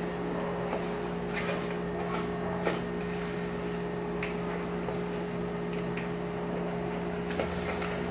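Rubber spatula stirring and scraping a thick, heavy batter around a bowl: irregular soft scrapes and light knocks against the bowl, over a steady low hum.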